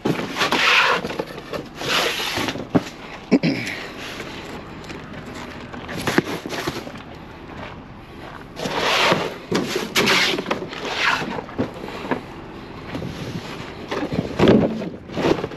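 Cans and buckets being handled and set down: irregular scrapes, knocks and clanks.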